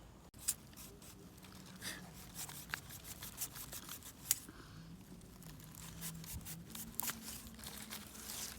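Scattered sharp snaps and clicks at irregular intervals over a low, crinkling rustle.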